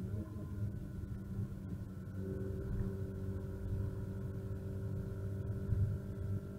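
Renault Clio RS R27's 2.0-litre four-cylinder engine, heard from inside the cabin, running at a steady pitch with a low rumble of road and tyre noise. The pitch wavers briefly at the start, then holds.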